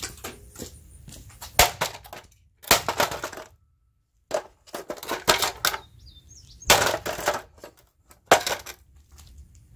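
Irregular bursts of clattering and knocking, hard objects handled and struck against each other, with a brief dead gap about midway.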